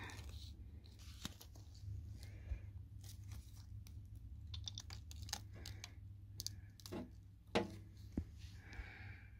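Bare speaker driver with a torn, burnt paper cone, driven by an amplifier: a steady low hum with irregular crackles and sharp clicks, the loudest crack about seven and a half seconds in. It is the sound of a speaker being blown.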